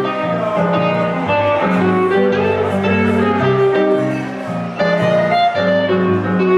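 Live blues duo playing an instrumental passage with no singing: an archtop electric guitar and a stage keyboard, with a bass line stepping from note to note underneath.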